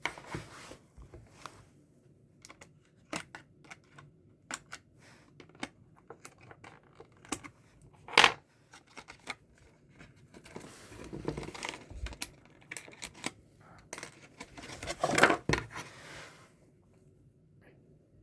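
Objects being handled: scattered clicks and knocks with rustling in between, a sharp knock about eight seconds in, and a longer, louder rustling noise around fifteen seconds in.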